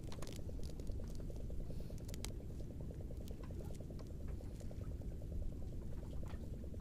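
Scattered light clicks and rustles of a fish being unhooked and pushed into a mesh keep net, over a steady low rumble.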